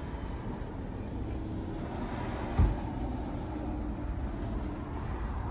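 Low, steady rumble of car traffic with a vehicle's engine humming faintly through the middle, and one short thump about halfway through.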